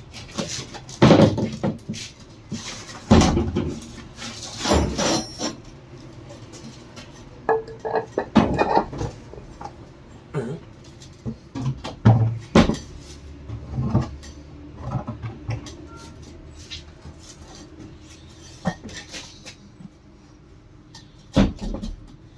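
Irregular metallic clanks and knocks of tools and parts of a Wilden air-operated diaphragm pump being handled and fitted during its repair, some strikes loud, with quieter pauses between.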